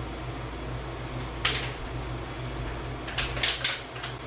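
Objects handled at a kitchen sink: one short sharp clatter, then a quick run of four or five light clicks about three seconds in, over a steady low hum.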